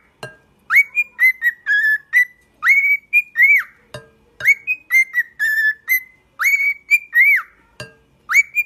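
Cockatiel whistling a short tune over and over: a phrase of clear, arching high whistles repeated about every two seconds. A few light knocks come in between.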